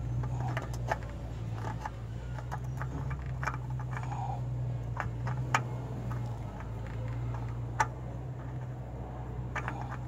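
Scattered sharp clicks and light taps of a new spin-on oil filter being handled and fitted by hand to its mount, metal against metal, over a steady low hum.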